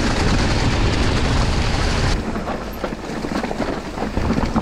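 Mountain bike descending a rough, muddy trail at speed: wind rush over the action camera's microphone, with the tyres rumbling on the ground. About two seconds in the rush drops away suddenly, leaving the bike's rattles and knocks over the rough ground.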